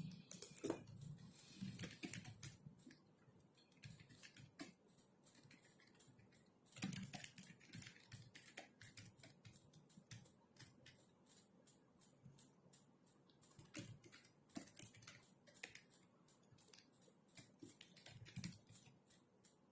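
Typing on a computer keyboard: soft, irregular runs of key clicks with short pauses, busier near the start and about seven seconds in.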